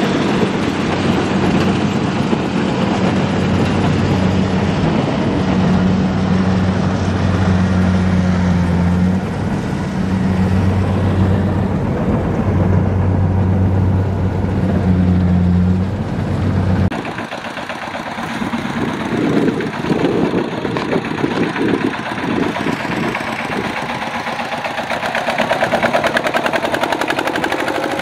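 Kubota RT120 two-wheel walking tractor's single-cylinder diesel engine running steadily while it pulls a trailer loaded with rice sacks. About two-thirds of the way through, the sound changes abruptly to a rougher, uneven engine beat as a tractor crosses a muddy ditch.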